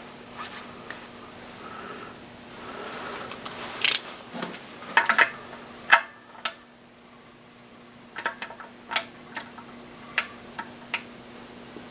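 Scattered sharp clicks and short bits of light metallic clatter from a torque wrench and hand tools being handled and adjusted, over a faint steady hum.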